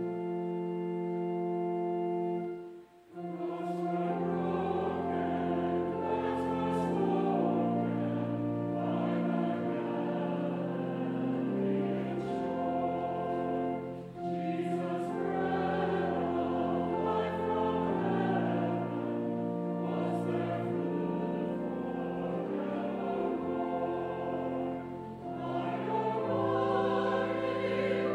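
A hymn sung by voices with instrumental accompaniment. Held chords are followed by a short break about three seconds in, after which the singing starts over the accompaniment.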